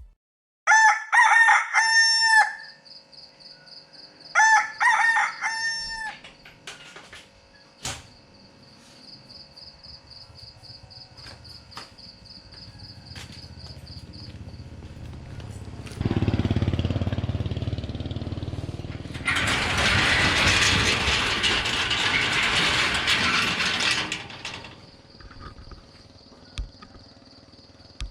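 A rooster crowing twice in quick succession, each crow a loud pitched call of about two seconds. A steady high insect trill runs under it, and later comes a loud rushing noise lasting several seconds.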